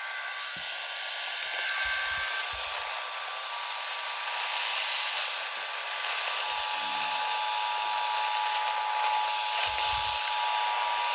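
Radio receiver static: a steady hiss from a weak or untuned signal, with faint steady tones humming underneath. One more tone comes in about a third of the way through and another near the middle.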